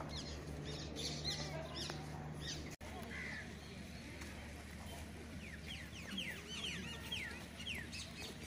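Many birds calling outdoors in quick, sharp down-sweeping chirps, coming thickest in the second half. There is a brief dropout about a third of the way in.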